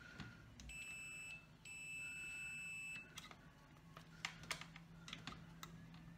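ToolZone digital multimeter's continuity beeper sounding a steady high beep twice, a short one about a second in and then a longer one of about a second and a half, as the probes touch across a power-supply diode: the beep means the diode is shorted. Light clicks of the probe tips on the board come between and after the beeps.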